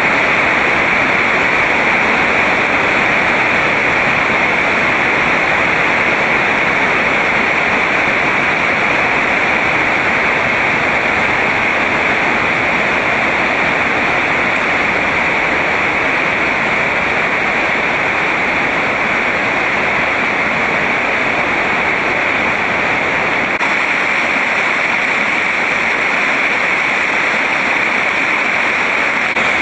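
Steady, loud rush of an underground stream flowing over rocks in a cave passage.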